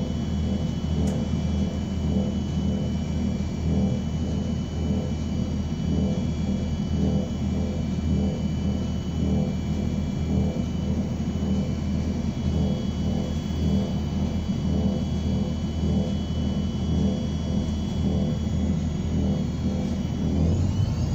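ENC Eldorado Transit city bus heard from inside: a steady low engine rumble with several high, steady whining tones. Near the end the whine starts to rise in pitch as the bus begins to speed up. A single brief tick about a second in.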